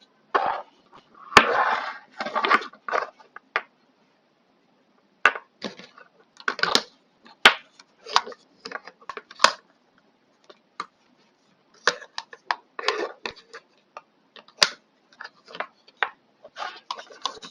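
Clicks, scrapes and light clatter of small plastic and metal parts being handled and fitted together by hand, in irregular bursts with several sharp clicks.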